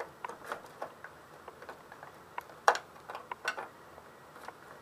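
Irregular clicks and light scraping as a can opener cuts its way around the thin sheet-steel lid of a sealed Soviet ammunition tin, with one sharper snap a little over halfway through.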